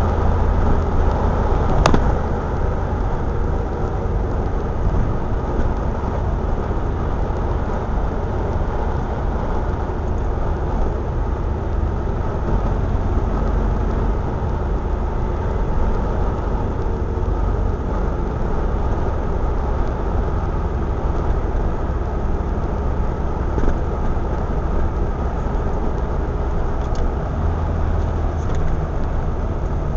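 Triumph Spitfire 1500's 1.5-litre four-cylinder engine cruising steadily at motorway speed, heard from inside the car along with road and wind noise. There is a single short click about two seconds in.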